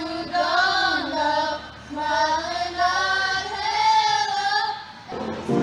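A group of young voices singing together at the microphones, in two long held phrases, broken off a little before the end.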